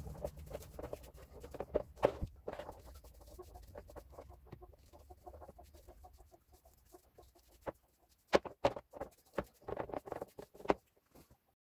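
Paint brush dabbing and scrubbing paint stripper onto a metal drill body in a plastic lid: irregular soft taps and clicks of bristles and metal on the plastic, with a few louder knocks about two seconds in and again from about eight seconds on.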